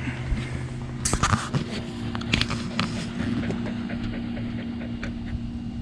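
A vehicle engine idling with a steady hum; its lower tone drops out about a second in. Scattered clicks and short rustles sound over it.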